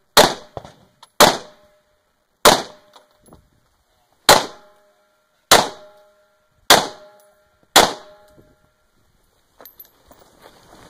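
Seven rifle shots fired one at a time, about a second or more apart, with a brief ringing tone after several of them. Faint movement noise near the end.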